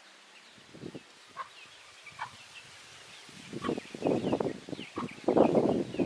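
Small birds chirping with short, faint, high notes, and from about halfway through, louder rushes of wind that come and go, buffeting the microphone.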